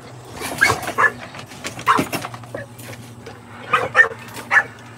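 A dog barking in short, separate barks, about six in all: two in the first second, one near two seconds, then three close together near the end.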